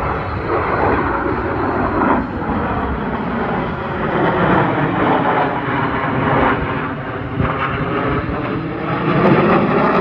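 Blue Angels F/A-18 Super Hornet jets passing overhead in formation with a loud, steady roar; the pitch of the engine whine slides down and then back up as they pass.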